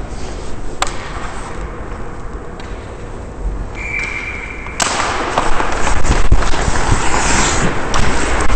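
Ice hockey skates scraping and carving on the ice, heard from a helmet-mounted camera, loud and rushing once the skater takes off just before five seconds in, with clacks of sticks and puck. Before that, a low rink rumble, one sharp click, and a short steady high tone.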